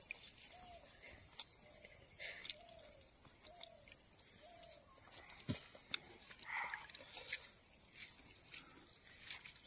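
Steady high-pitched buzzing of insects, with a run of about six short, evenly spaced hooting calls from an animal in the first half and a single knock about halfway through.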